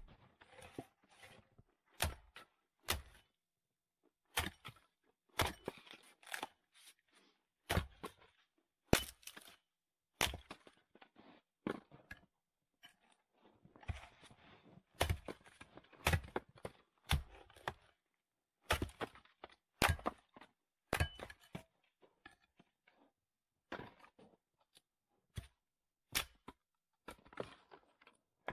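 Firewood being handled: irregular sharp wooden knocks and cracks, with short rustling and tearing sounds in between.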